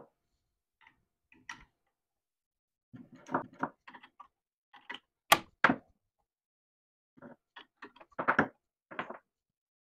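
Metal collet wrenches clicking and knocking against a CNC router spindle's collet nut as the router bit is changed: a scattered series of short, sharp clicks and knocks. The sharpest comes about five seconds in, and a quick cluster follows near the end.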